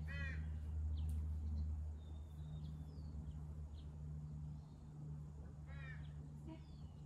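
Birds calling over a steady low hum: a quick series of chirps just after the start and another near six seconds, with scattered short, high chirps in between.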